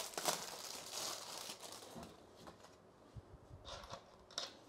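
Faint rustling and scraping for about two seconds, then a few light taps: sugar being spooned and sprinkled through a stencil onto a bowl of semolina pudding.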